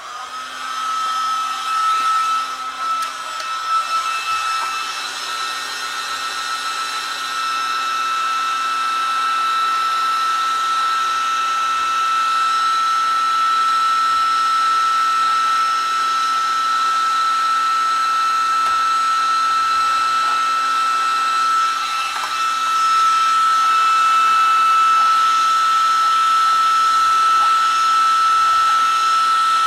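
Electric heat gun switched on and then running steadily, its fan blowing with a constant high whine, as it heats paint on the car body to soften it for scraping off.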